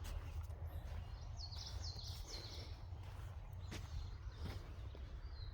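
A songbird sings a quick run of short, high, down-slurred notes about a second in, over a steady low rumble. A few faint ticks follow near the middle.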